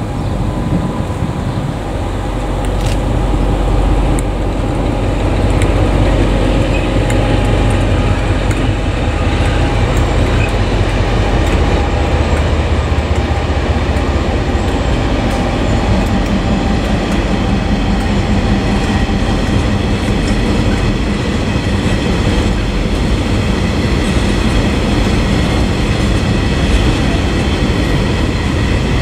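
Two diesel locomotives pass, their low engine drone strongest in the first half, followed by a long string of coal hopper wagons rolling by. The wagons' steel wheels rumble steadily, click now and then over rail joints, and give a thin high squeal.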